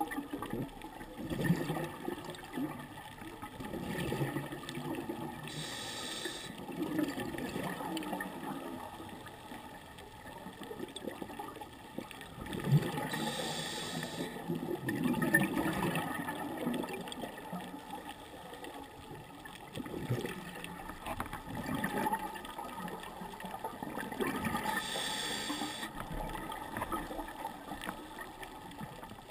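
Scuba regulator breathing heard underwater through a camera housing: three inhaled hisses of about a second each, roughly ten seconds apart, with the bubbles of each exhalation rushing and bubbling in between.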